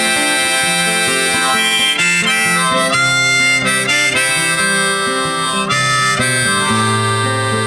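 Background music: an instrumental break led by harmonica over guitar, with held notes that change every second or so.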